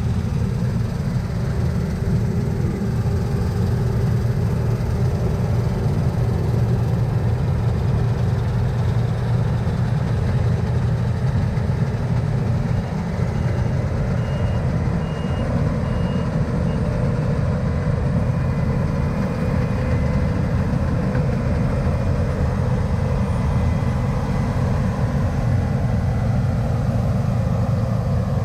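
Diesel engine of heavy harvest machinery running steadily at working speed, loud and low. A faint run of short, high beeps comes in about halfway through.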